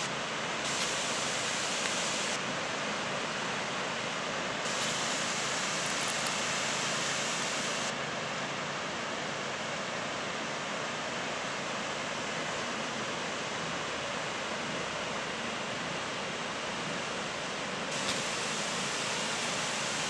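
Waterfall rushing steadily as it drops down a rock face into a plunge pool.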